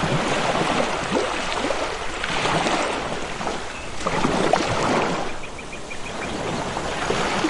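Water rushing and splashing with a steady babble of gurgles, like a fast stream or small cascade. A short run of quick, high pips cuts through about two-thirds of the way in.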